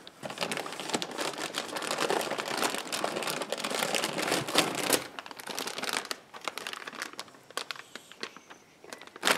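Plastic packaging crinkling and rustling as it is handled and pulled out of a cardboard box, including a metallized anti-static bag. It is dense and busy for about five seconds, then thins out to scattered rustles and clicks.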